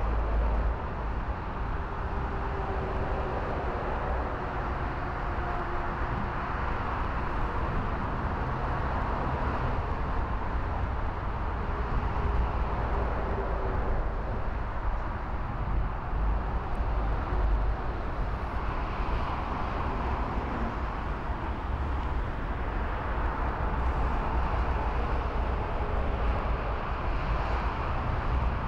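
Boeing 777 airliner's twin jet engines during landing: a steady rushing jet noise as it flares, touches down and rolls out along the runway. Faint whining tones slide slowly down in pitch over the first half.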